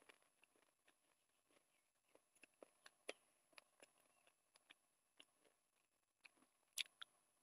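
Faint, scattered wet clicks and smacks of a person eating with their fingers: mouth sounds of chewing and fingers working through noodles and curried chicken. A sharper click stands out near the end.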